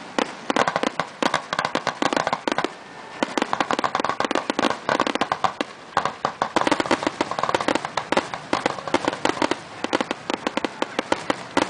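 Aerial fireworks going off in quick succession: dense, rapid pops and crackles in clusters, with brief lulls about three and six seconds in.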